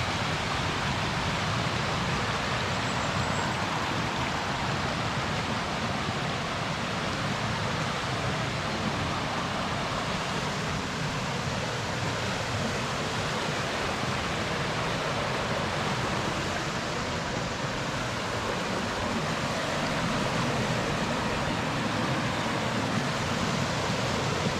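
Steady rushing of flowing stream water, an even hiss with no let-up.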